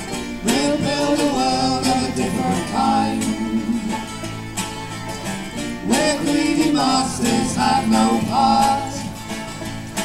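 Live bluegrass-style folk band playing: banjo, electric guitar, fiddle and bass together, with a melody line in two phrases over the picked and strummed strings.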